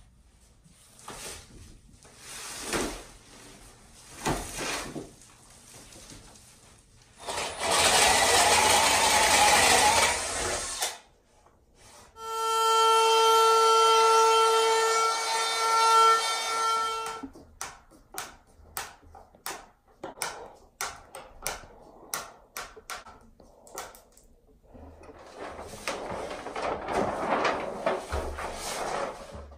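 Woodworking tool noise on solid wood: a loud rough scraping stretch of about three seconds, then a tool running with a steady whine for about five seconds. After that comes a run of quick clicks and knocks, and another rough stretch near the end.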